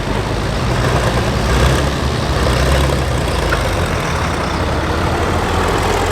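Turbocharged diesel engine of a Pro Farm pulling tractor running hard and loud, with a tone that rises steadily near the end.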